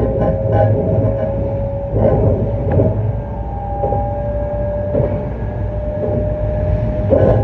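E259 series Narita Express electric train running: a steady rumble under a motor whine that rises slowly in pitch, with wheels clicking over rail joints about once a second.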